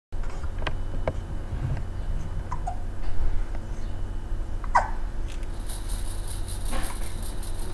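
A baby hiccupping: short, sudden hiccups every second or two, several with a quick falling squeak of the voice, over a steady low hum.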